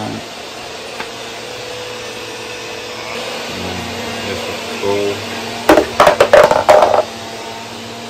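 Steady fan-like whirring, with a burst of loud, irregular clattering knocks about six seconds in as parts and packaging are handled.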